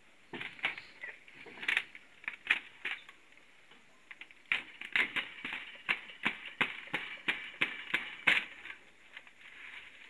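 Woven bamboo wall panel (amakan) crackling and snapping as it is pried and peeled off a wooden wall frame: a run of sharp, irregular cracks and clicks, thickest in the second half.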